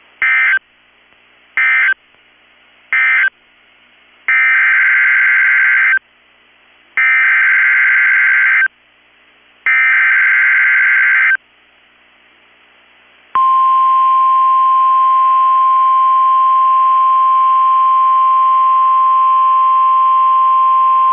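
NOAA Weather Radio Emergency Alert System signalling. First come three short buzzy data bursts, the end-of-message code closing the previous warning. Then three longer SAME header bursts announce the next warning, followed by the steady 1050 Hz warning alarm tone held for about nine seconds.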